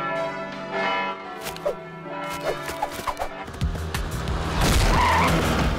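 Church tower clock bell tolling, its strikes ringing on, then about three and a half seconds in a small moped engine buzzes past as a music cue comes in.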